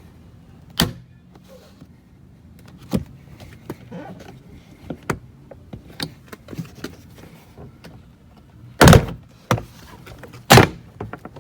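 Plastic retaining clips of a Toyota 4Runner's inside door trim panel popping loose as the panel is pulled off, a string of sharp snaps with the two loudest near the end.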